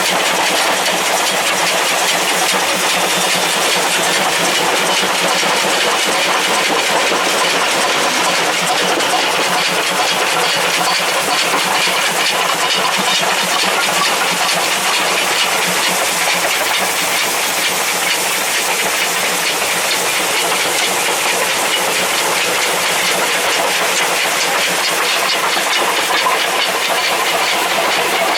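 C58 steam locomotive of the SL Ginga train running under way: a steady hiss and rush of steam and running gear, without pauses.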